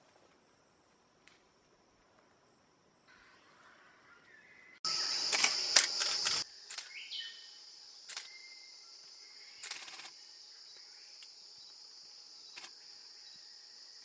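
Steady high-pitched insect drone that starts abruptly about five seconds in. Its first second and a half carries loud clicking and rustling; before that the sound is faint.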